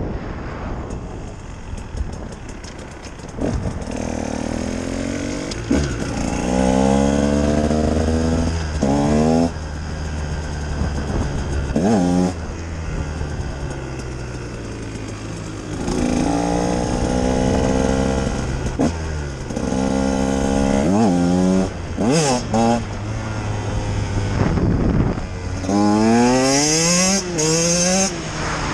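A 2018 Husqvarna TE 150 two-stroke enduro engine is ridden hard. It revs up again and again, and its pitch climbs and then drops back at each gear change or roll-off, about seven times.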